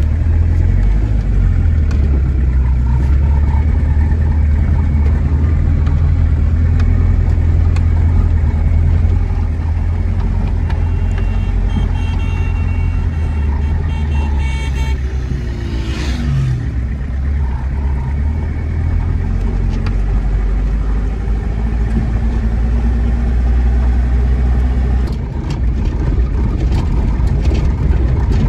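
Toyota Hilux pickup driving on a rough road, heard from inside the cab: a steady low engine drone with road noise. A brief falling tone comes about halfway through.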